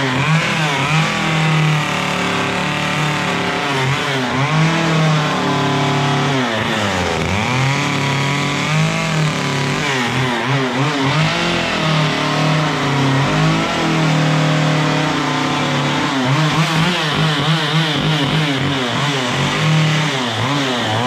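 Chainsaw running and cutting into wood to shape the heart, its engine pitch rising and falling again and again as the throttle and load change, with a deep drop about seven seconds in.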